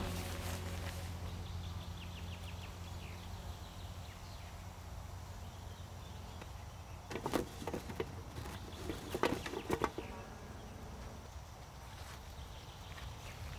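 Quiet outdoor ambience: a steady low hum with faint high chirping. Two short clusters of rustling knocks come about seven and nine seconds in.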